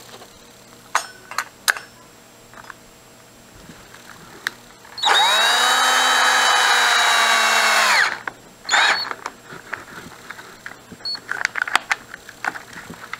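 Power drill driving a screw through a metal stand into a wooden shelf: the motor spins up about five seconds in, runs steadily for about three seconds, then winds down. Short clicks and knocks of handling the drill and stand come before and after.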